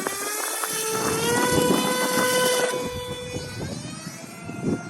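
Electric motor and propeller of an E-flite F-27 Evolution RC plane whining. The pitch rises about a second in, holds, then fades over the last two seconds. Wind buffets the microphone throughout.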